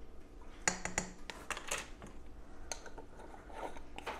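Light clicking and clatter of a ring of plastic measuring spoons being handled and set down on a countertop: a quick cluster of sharp clicks about a second in, then a couple of single clicks.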